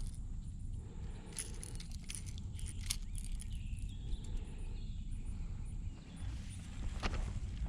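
Low wind rumble on the microphone, with a few light clicks and knocks about a second and a half, two and three seconds in.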